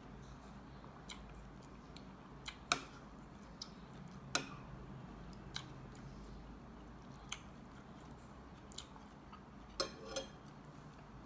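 A metal spoon and fork clinking against a glass bowl of noodle soup, about ten short light clicks spread irregularly through, with quiet chewing between them.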